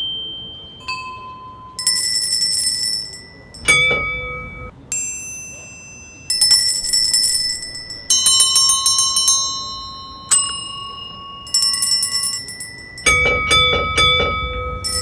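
A sequence of different small bells, one sound after another. Some are single strikes whose bright, high tone rings on and fades. Others are rapid runs of repeated ringing, each lasting a second or two.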